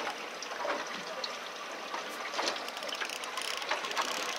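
Small baitcasting reel wound steadily, retrieving a tai-rubber lure, over a steady hiss of wind and water, with a few faint ticks.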